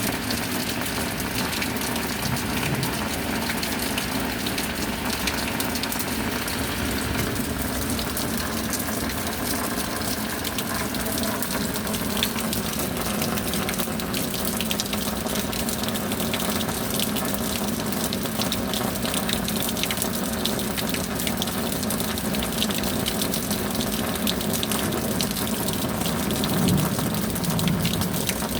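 Steady tropical rain falling, a dense even hiss sprinkled with many fine drop ticks.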